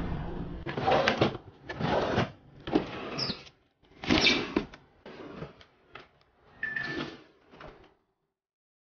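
Refrigerator doors and drawers being slid open and shut: a string of about seven short sliding sounds, ending a little before the close.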